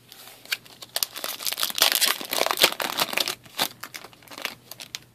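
Plastic trading-card pack wrapper crinkling and tearing as it is opened and the cards are pulled out: a dense run of crackles, loudest in the middle, dying away near the end.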